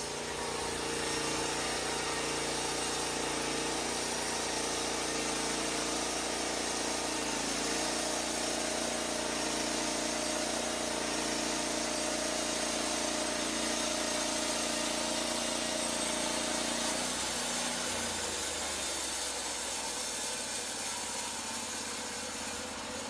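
Portable bandsaw mill's engine running steadily under a loud even hiss, the sound of the mill at work; about seventeen seconds in the engine note drops and changes.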